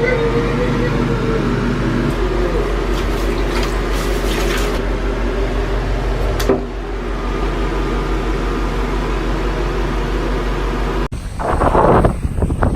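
A steady mechanical hum with a sharp click about six and a half seconds in. Near the end it switches suddenly to gusty wind buffeting the microphone.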